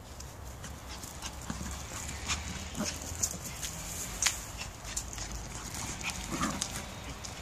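Two small dogs playing and chasing each other, with a few short dog noises among many light, quick clicks and patter of their feet.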